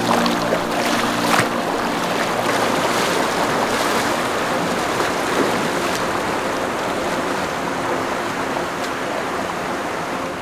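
Shallow creek water rushing steadily, with a boot splashing through it a couple of times in the first second or two.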